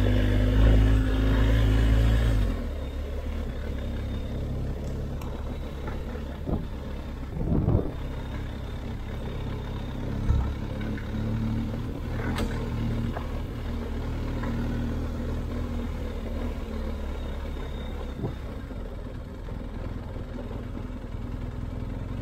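A vehicle engine running steadily. It is louder for the first two seconds or so, then settles to a lower, even hum, with a few brief louder noises around the middle.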